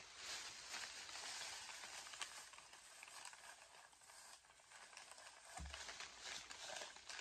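Rustling and crinkling of a plastic shopping bag and wrappings handled while unpacking, louder in the first couple of seconds, with a soft thump about five and a half seconds in.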